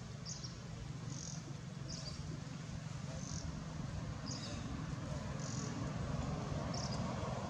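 A short high-pitched chirp repeating about once a second, from a small animal such as an insect or bird, over a steady low background rumble.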